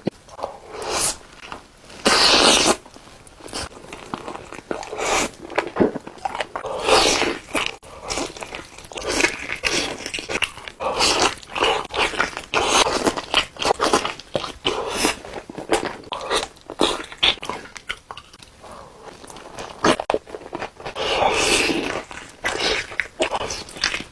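Close-up eating sounds of chicken being bitten, crunched and chewed, in irregular bursts of crisp crunches and wet chewing.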